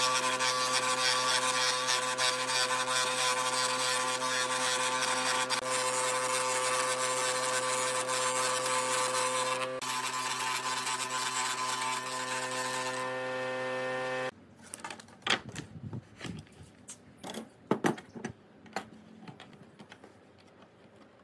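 Table saw running and ripping a wooden dowel lengthwise, a steady hum under the cutting noise, which stops suddenly about fourteen seconds in. After it, scattered light clicks and knocks of metal hand tools handled on a wooden workbench.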